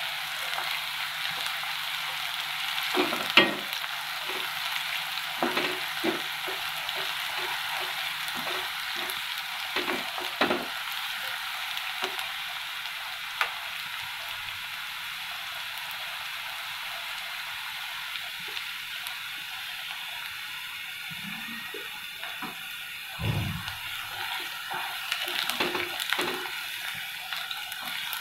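Chopped onion and cumin seeds sizzling in hot oil in a non-stick kadai, a steady hiss. A wooden spatula stirs through it, with scattered scrapes and knocks against the pan.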